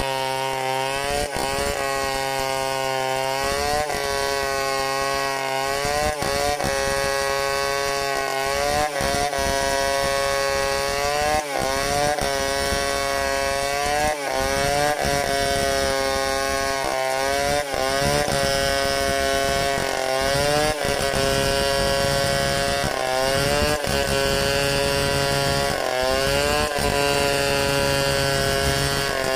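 Chainsaw running at high revs while ripping a log lengthwise freehand. Its pitch dips and comes back up every few seconds as the bar loads in the cut and frees again.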